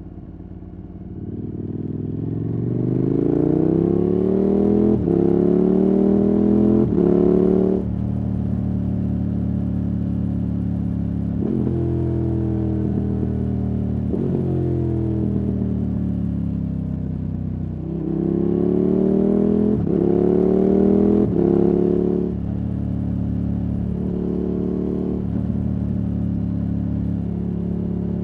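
KTM 1290 Super Adventure S's V-twin engine through a Wings aftermarket exhaust, accelerating hard through the gears twice: the pitch climbs in each gear and drops at each upshift. Between the two pulls it runs steadier and slows, the pitch falling.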